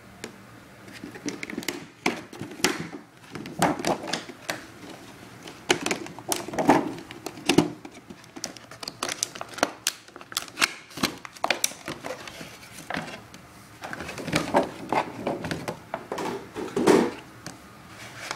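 Stiff clear plastic clamshell packaging being pried and pulled open by hand, crackling and clicking irregularly as the hard plastic flexes and snaps.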